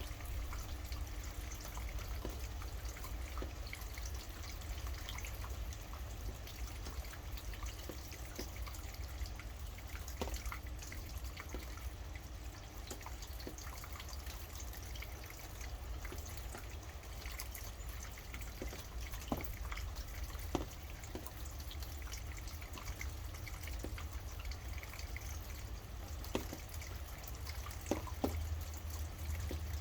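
Steady rainfall with scattered drips and drops, a few sharper drops standing out in the second half, over a low rumble.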